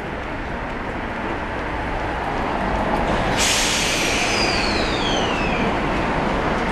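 Tokyo Metro 05 series subway train's air brakes releasing with a sudden loud hiss about three and a half seconds in, with a falling whistle in the hiss, as the train starts to pull away. A steady rumble of the standing train lies underneath.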